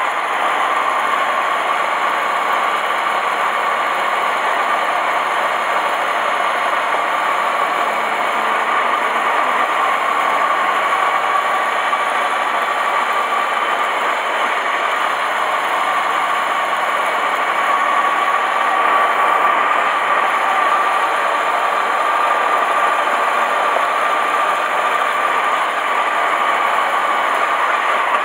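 Honda motorcycle riding at a steady pace: continuous engine running under an even rush of wind and road noise, with a steady whine that drifts slightly in pitch.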